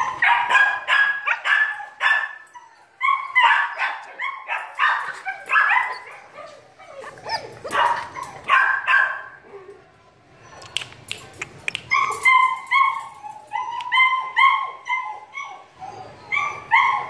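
A two-and-a-half-month-old female German Shepherd puppy barking and yipping over and over in short, high calls, with a brief pause about ten seconds in.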